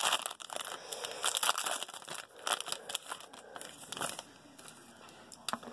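Foil wrapper of a basketball trading card pack crinkling and being torn open: a run of irregular crackles and rips that thins out near the end.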